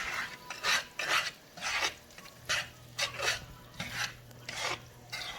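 Utensil scraping and stirring scrambling eggs and shaved steak in a frying pan, in repeated short strokes about two a second.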